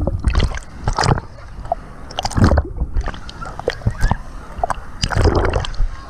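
Wave pool water splashing and sloshing over a camera as it dips in and out of the waves, in irregular bursts. It sounds briefly muffled and gurgling around the middle, while the camera is under water.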